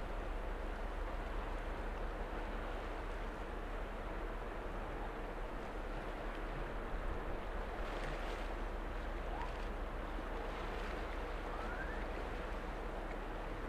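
Steady rumble of a frigate's machinery passing close by, with the rushing wash of her bow wave.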